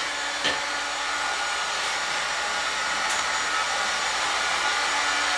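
Electric heat gun running steadily: an even blowing rush with a faint motor hum. It is warming a fresh coat of Durabond setting-type joint compound so it hardens quickly.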